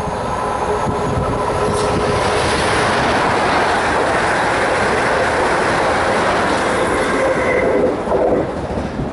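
South West Trains passenger multiple unit passing through at speed on the near track: a rush of wheels on rail and air that swells to its loudest mid-way, then dies away as the train clears, with a brief high tone near the end.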